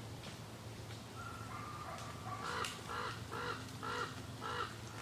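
A crow cawing: five harsh caws in quick succession, about two a second, starting about two and a half seconds in, after a few fainter calls.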